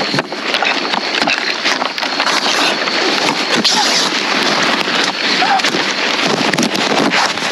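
Loud rustling, scraping and knocking as a handheld camera is grabbed and jostled at close range, with a voice now and then.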